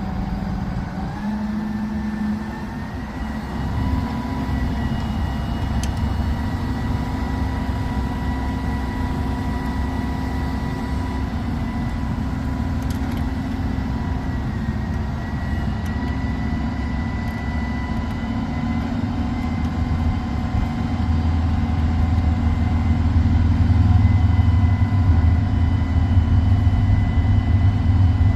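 Diesel engine of a large mobile crane running steadily, with a low rumble and a few steady whining tones over it. About three quarters of the way through it speeds up and gets louder.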